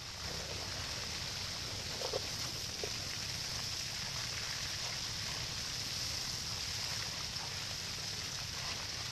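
Water spraying from a hose onto elephant grass: a steady hissing rush, with a low rumble underneath.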